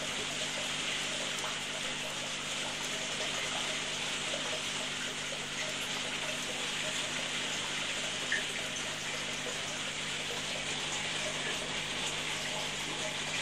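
Turtle tank filter running: a steady rush of water splashing into the tank over a low, even pump hum, with one light tap about eight seconds in.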